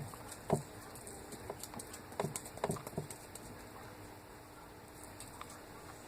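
Sticky homemade slime being kneaded and pulled off fingers: scattered soft wet clicks and pops, a few in the first three seconds, then quieter.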